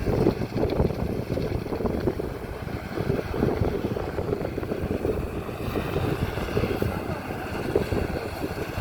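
Maxxi Bimo 102 rice combine harvester running steadily while harvesting, a dense, rough machine noise with most of its weight in the low range.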